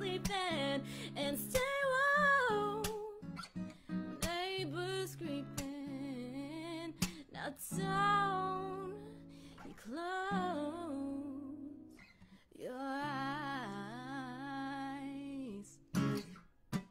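A woman singing a slow song with vibrato, accompanied by a strummed acoustic guitar, with short pauses between phrases. Near the end the song stops abruptly.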